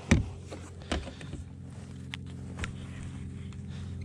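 Knocks and clunks of a landing net and gear bumping against a small boat's hull, the loudest just after the start and another about a second in, with a couple of light clicks later. Under them runs a steady low hum.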